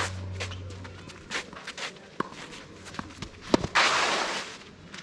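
Sounds of tennis play on court: footsteps and a run of short, sharp knocks from ball and racket, with one loud hit about three and a half seconds in followed by a brief rushing, hiss-like noise lasting just under a second.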